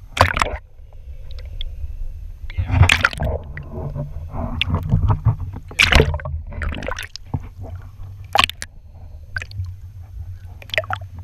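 Sea water sloshing and splashing against a GoPro's housing as the camera dips in and out of the surface, with gurgling while it is under. About five sharp splashes stand out over a steady low rumble.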